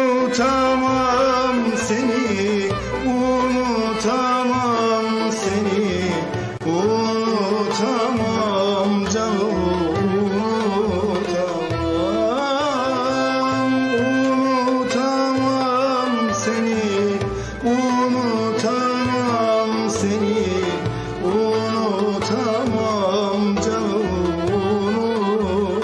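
Turkish song with a male singer using a handheld microphone, backed by a band with a steady beat; the melody bends and slides in an ornamented Middle Eastern style.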